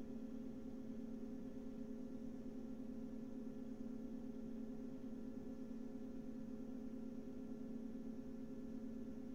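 Steady low hum with a few fainter steady tones above it, unchanging, with no other sounds.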